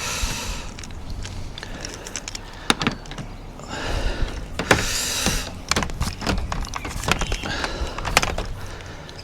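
Scattered clicks and knocks with bursts of rustling, the loudest about four to five and a half seconds in: handling noise as cables and gear are moved about.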